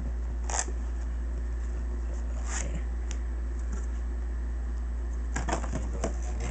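Cardboard box flaps and a plastic carry handle being handled and pulled apart: a few brief scrapes and rustles, with a quick cluster of them near the end, over a steady low hum.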